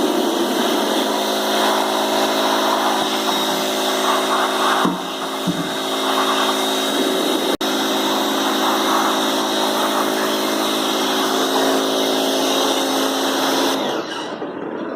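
Bosch jet-pump pressure washer running: a steady motor hum under a loud hiss of water spray. Near the end the spray hiss cuts off and the sound drops.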